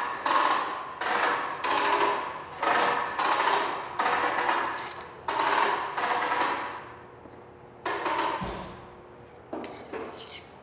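Air hose being pulled off a retractable hose reel in quick repeated tugs, the reel spinning and rattling with each pull, about two pulls a second. The pulls thin out to a few last ones near the end.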